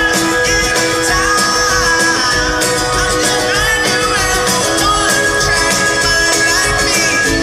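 Live pop-rock band playing through a large arena sound system, a male lead vocal singing over guitar and a steady drum beat.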